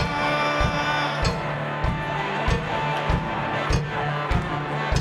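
Live rock band playing an instrumental passage without vocals: electric guitar and bass over a steady kick-drum beat, a thump a little under twice a second.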